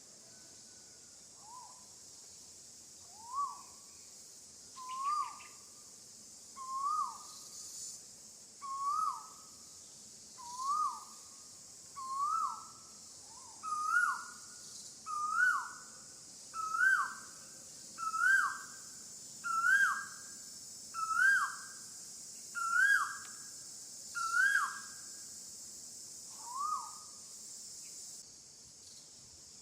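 A bird calling a long series of about fifteen short whistled notes, each rising then dropping, roughly one every second and a half, climbing in pitch and getting louder as the series goes on, with one last lone note after a short pause. A steady high hiss runs underneath.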